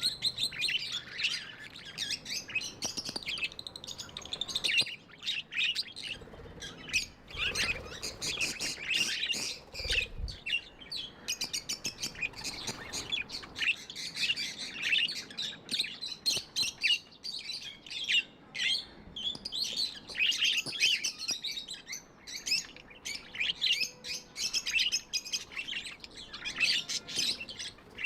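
Budgerigars chirping continuously in a dense run of quick, high chirps.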